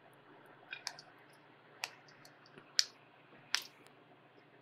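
About five short, sharp light clicks spread over a few seconds while a wire is hand-soldered onto a pad of a small circuit board with a small USB soldering iron, the loudest just under three seconds in.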